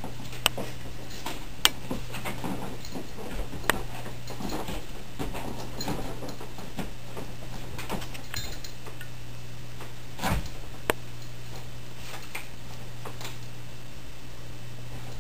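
Siberian husky puppy clambering on an office chair: a handful of sharp clicks and knocks, scattered and irregular, over a steady low hum.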